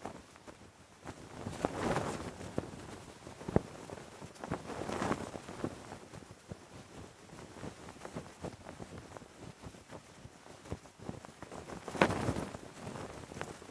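Cloth flag flapping in gusty wind: irregular rustling with sharp snaps and cracks, swelling with gusts about 2 and 5 seconds in, and the loudest snap near the end.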